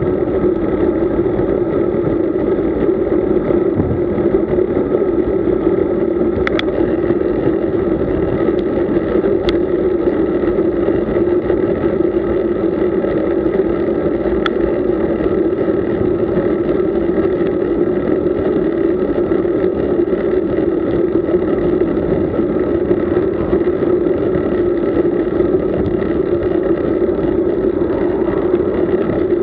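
Steady wind and road noise from a camera riding along on a road bike, with a few short clicks.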